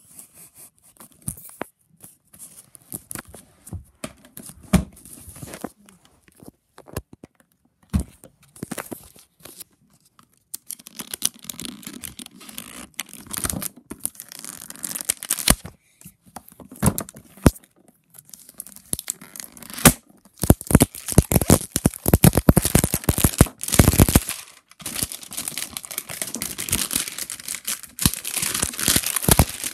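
Plastic packaging on a toy box being torn open and crinkled by hand: irregular rustles, rips and sharp clicks, sparse at first and then dense and louder from about a third of the way in.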